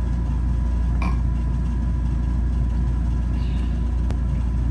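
A steady low hum with a couple of faint clicks over it.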